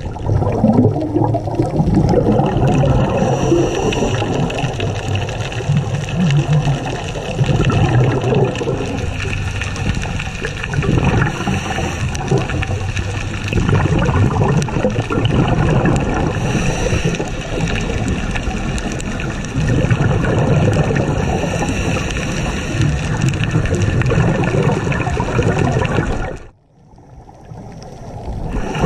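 Underwater sound of a scuba diver breathing through a regulator: bubbling, rumbling exhalations that swell and fade every few seconds. The sound cuts out briefly near the end.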